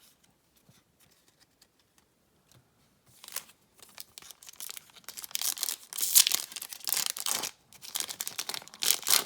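A foil Yu-Gi-Oh booster pack wrapper being torn open and crinkled, in a series of crackly rips starting about three seconds in, loudest near the middle and again near the end.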